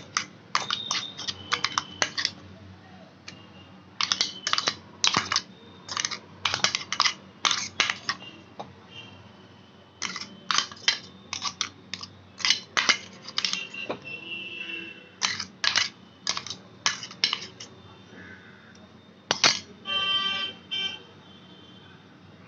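Quick runs of sharp metallic clinks and taps from a spoon against a stainless steel bowl as spice paste is added to the meat.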